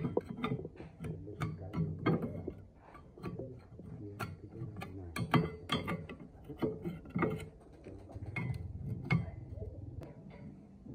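Hammer blows on the steel knife blades of a chopper machine, irregular metal knocks about one or two a second with short ringing.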